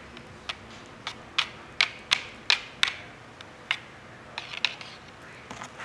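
Light metallic clicks and ticks, about a dozen at irregular spacing, as a coil of steel picture-hanging wire is handled and threaded into a small metal Euro hanger clip. The clicks thin out about four and a half seconds in.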